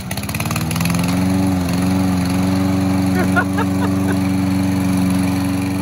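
Walk-behind rotary lawn mower's small engine picking up speed over the first second or so, then running steadily as it cuts grass. A few short high chirps sound about three seconds in.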